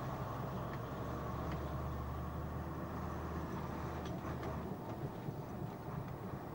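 Milk tanker lorry's diesel engine running steadily, heard from inside the cab, with a few light rattles; the low engine drone eases about three-quarters of the way through.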